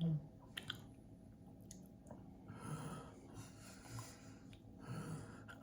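Quiet chewing and breathing of a person eating a Rice Krispie treat, with a short low sound at the start and a click about half a second in.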